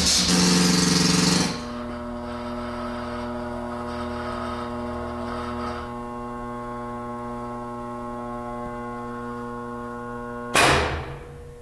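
CSR-700 automatic stair trencher running its setup cycle after SETUP ENTER is pressed, its controller positioning the router templates for the entered rise and run. A loud buzz and hiss for about a second and a half gives way to a steady mechanical hum, and near the end a sudden loud hiss fades away quickly.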